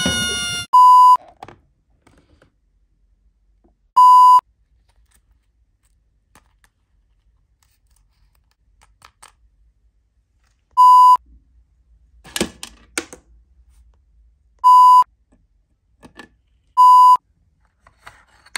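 Five loud censor bleeps: the same steady 1 kHz tone, each about a third of a second long, coming at irregular gaps. Faint clicks from small plastic props being handled fall between them.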